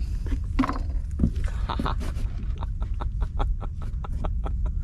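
Rapid, evenly spaced clicking, about five clicks a second, starting about two and a half seconds in, over a steady low rumble.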